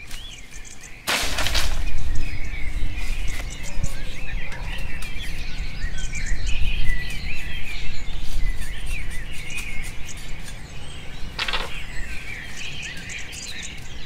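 Forest birds chirping and calling throughout. About a second in comes a loud clatter of a bundle of bamboo poles being dropped onto leaf litter, followed by a low rumble for several seconds. A single sharp knock comes about eleven and a half seconds in.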